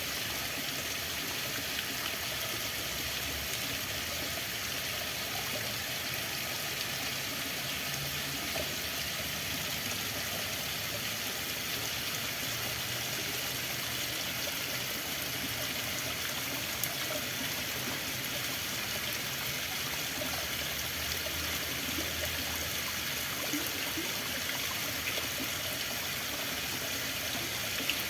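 Running water flowing steadily: an even rushing hiss with faint small bubbling notes through it.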